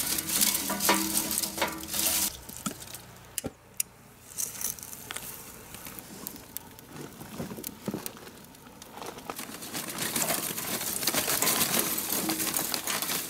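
Crackling and rustling as charcoal is got going in a mangal grill. It is louder near the start and again over the last few seconds, with scattered sharp clicks in between.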